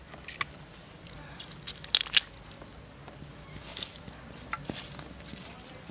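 Biting, tearing and chewing raw duck meat up close: wet squishing with sharp crunching clicks, the loudest cluster about two seconds in.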